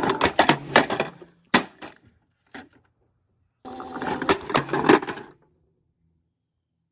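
Toy washing machine's small motor whirring in two short bursts, with plastic clattering and clicking and a few separate sharp clicks between, then stopping.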